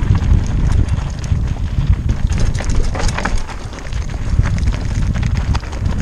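Wind buffeting a helmet-mounted camera's microphone as a mountain bike descends a loose, rocky dirt trail at speed, with many quick clicks and knocks from the tyres over stones and the bike rattling.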